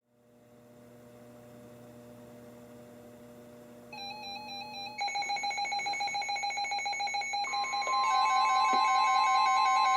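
Several weather alert radios going off together: a faint hiss fades in, then one radio's warbling electronic alarm starts about four seconds in and more beeping alarms join, growing louder in steps. About two and a half seconds before the end a steady high tone joins them, the NOAA Weather Radio 1050 Hz warning tone that sets the radios off.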